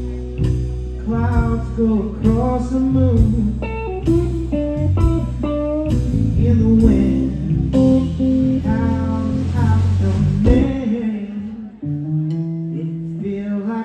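Live blues band playing: electric guitar over bass guitar and drums. The drums drop out near the end, leaving guitar and bass.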